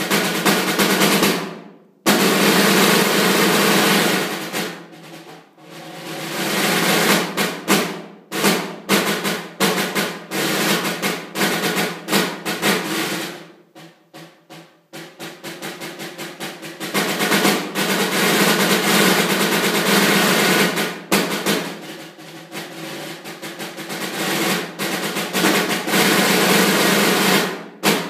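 Snare drum played solo in an étude: long rolls that swell and fade, broken up by runs of sharp single strokes and accents. There are brief pauses about a second and a half in and around fourteen seconds.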